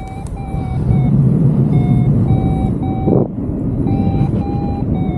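Paragliding variometer beeping in short, steady pulses, about two a second, its pitch stepping higher near the end: the sign of the glider climbing in rising air. Wind rushes over the microphone underneath.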